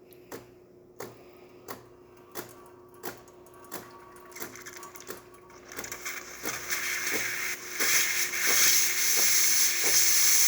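DeLonghi Magnifica espresso machine switched to steam: it clicks regularly, about once every 0.7 seconds, over a steady hum, and about halfway through the steam wand begins to hiss, growing quickly into a loud, steady rush of steam.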